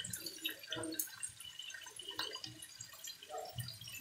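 Pork belly skewers frying in a little fat in a small frying pan, sizzling and crackling with scattered pops, while wooden chopsticks tap and scrape in the pan as the meat is turned.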